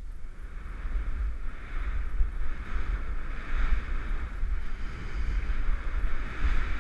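Wind buffeting the camera's microphone during a downhill ski run, a steady heavy rumble, with the hiss of skis sliding over snow.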